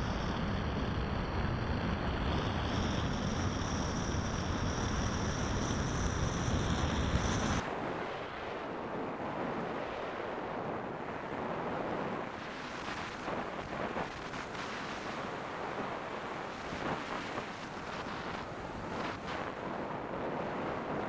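Airflow rushing over the onboard camera microphone of a Great Planes Fling 2-metre electric sailplane in flight, with a steady high whine for the first seven seconds or so. Then the whine stops suddenly and the rush drops to a softer wind noise as the glider sinks low with its propeller folded.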